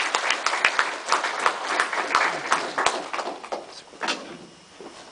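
Audience applauding, the clapping thinning out and dying away about three to four seconds in.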